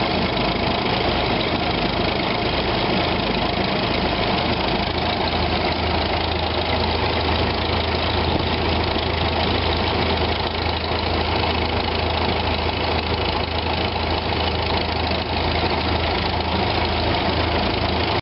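A 1936 International Harvester W-40 tractor engine being turned over on a flat belt by a running Farmall 300, a steady mechanical engine run with knocking. This limbers up an engine that sat unused for 30 years.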